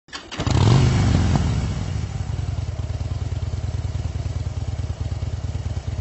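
Motorcycle engine revved once about a second in, then idling with a steady low throb.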